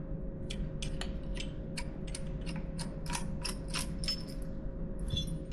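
Small screwdriver turning a snugly fitted screw out of a machined aluminum part: a run of light metallic clicks and ticks, a few a second, coming quicker after about three seconds.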